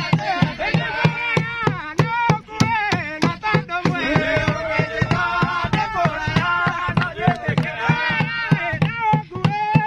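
A group of voices singing to a large drum beaten in a steady, fast beat.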